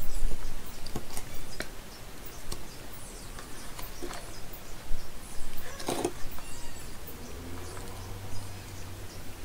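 Scattered light clicks and taps of a soldering iron, tweezers and battery cells being handled on a workbench, with a louder knock about six seconds in.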